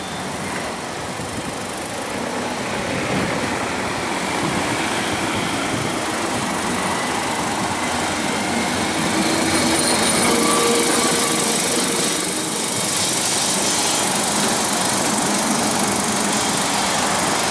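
Lisbon Carris historic tram no. 560 running over its rails, a steady rumble that grows louder as it comes close. A few thin whining tones stand out briefly about ten seconds in.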